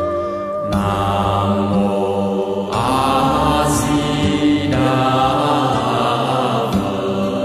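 Vietnamese Buddhist chanting: voices sing long, drawn-out phrases, changing about every two seconds.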